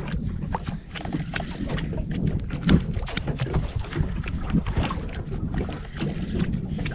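Speedboat on the water, with a steady low rumble, irregular knocks and splashes of water against the hull, and wind buffeting the microphone.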